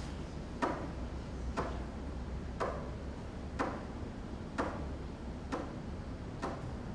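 Steady ticking, about one tick a second, over a low hum.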